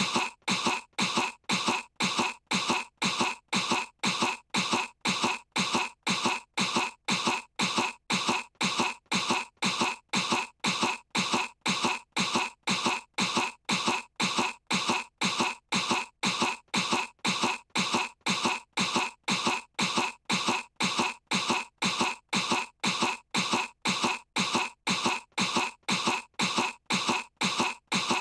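A cartoon young girl's put-on cough, one short clip looped over and over at an even rate of about two coughs a second. It is a fake cough, meant to make her sound sick.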